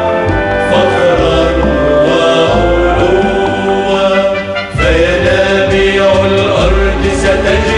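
Music: a choir singing an Arabic operetta anthem over instrumental backing, with a short break a little past halfway.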